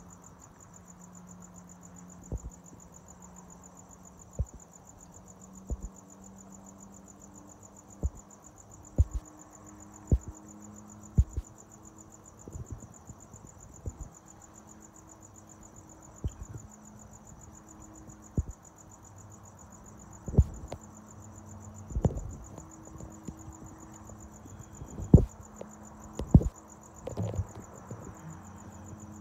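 Crickets chirping in a steady, high-pitched continuous chorus, broken by irregular sharp low thumps, which come more often in the second half.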